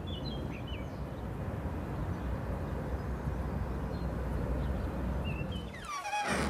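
Outdoor early-morning ambience: a steady low rumble and hiss, with birds chirping briefly a few times near the start and again near the end. A person's voice comes in just before the end.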